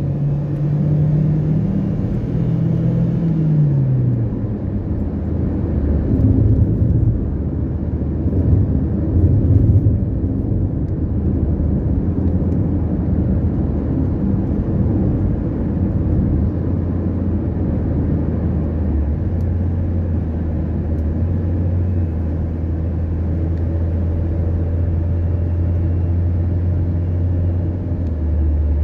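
Car engine and tyre noise heard from inside the cabin while driving at highway speed, a steady low drone. In the first few seconds the engine note climbs and then falls back.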